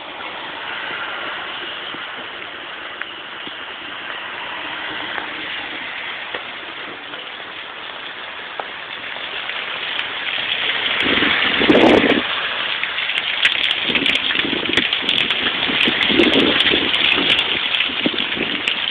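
Heavy rain falling, with rainwater pouring and splashing off the edge of a clay tile roof. The rushing sound grows louder and splashier in the second half.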